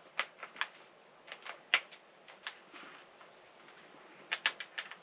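A scattering of sharp clicks and light knocks, irregularly spaced, with a quick run of four near the end: handling noise from tools and hardware being set up.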